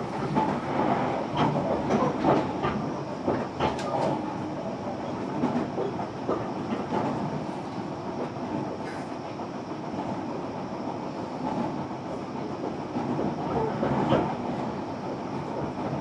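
JR Kyushu 305 series electric train running, heard from inside motor car MoHa 305-105: a steady wheel-on-rail rumble with sharp knocks from wheels crossing rail joints, several in the first few seconds and again near the end.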